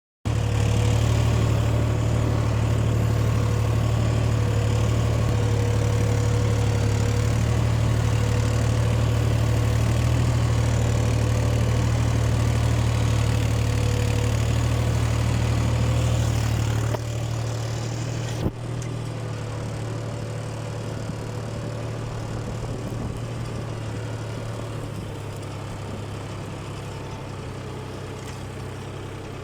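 Solis S 50 4WD tractor's diesel engine running steadily under load while ploughing. About seventeen seconds in the engine sound drops in level, a single sharp knock follows a second and a half later, and the engine then slowly fades.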